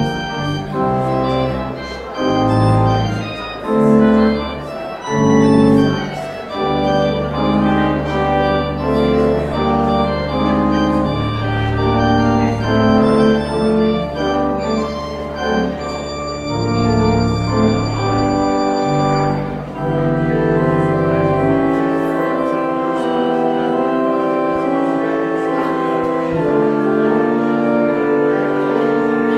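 Church organ playing a postlude after the benediction: sustained chords over deep bass pedal notes. The bass notes drop out about 22 seconds in, leaving lighter, higher chords.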